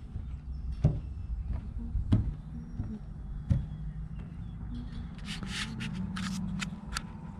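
Footsteps on wooden dock planks, three sharp knocks over a low steady rumble, then fingers rubbing over the handheld camera and its microphone: a quick run of short scratchy hisses near the end.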